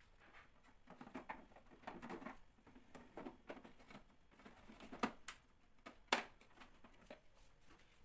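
Black plastic filter frame of an air purifier being handled and slid into the unit's plastic housing: faint scraping rustles, then a few sharp clicks about five and six seconds in as it seats.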